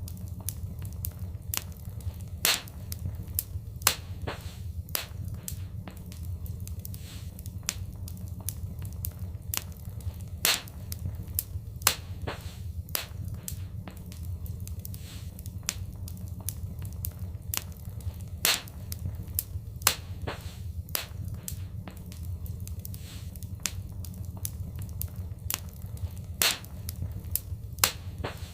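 Wood fire crackling in a fireplace: frequent sharp pops and snaps, a few much louder than the rest, over a steady low rumble of the flames.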